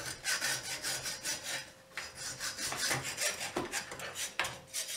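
Hand hacksaw cutting back and forth through a 1¼-inch iron pipe nut cap held in a vise: repeated rasping strokes of the blade in metal, slicing the air-intake slot for a venturi burner.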